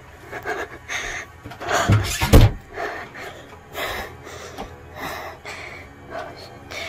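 Breathy, panting sounds about every half second in a small room, with one loud, heavy thump about two seconds in.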